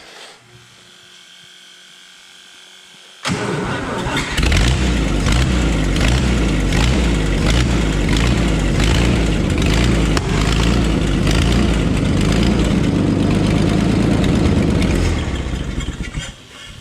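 Power Horse farm tractor engine cranked over by its starter with an even beat of about two strokes a second, sputtering without staying running, then dying away near the end. A low hum comes first. The engine is starved of fuel because its fuel pump is hooked up backwards.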